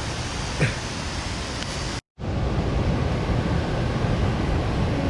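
Steady rushing of a mountain stream, with a short click less than a second in and a sudden brief dropout about two seconds in, after which the rushing returns a little louder.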